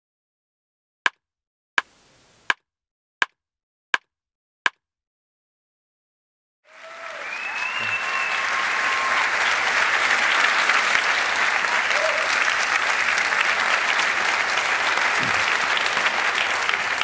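Six short sharp clicks, about 0.7 s apart, over silence; then audience applause swells in about seven seconds in and continues steadily.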